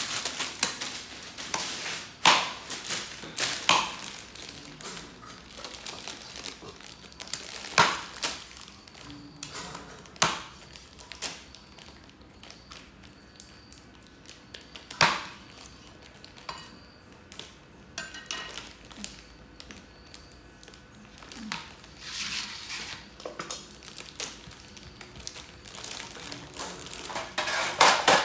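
A plastic snack bag crinkling and rustling as a monkey handles and bites at it, getting busier near the end. Sharp knocks of a knife chopping on a wooden cutting board come every few seconds, the loudest about 8, 10 and 15 seconds in.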